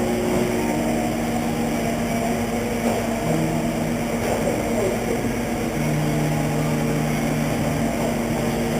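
Radio-controlled race trucks running laps, their electric motors whining with a pitch that shifts as they speed up and slow down.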